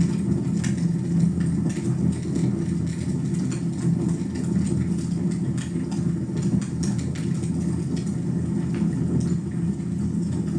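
Wood fire burning in a fireplace: a steady low rumble from the flames, with scattered, irregular crackles and pops.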